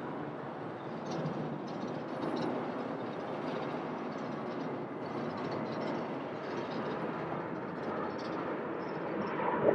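Steady, distant jet rumble of a twin-jet airliner with rear-mounted engines rolling out and slowing on the runway just after touchdown.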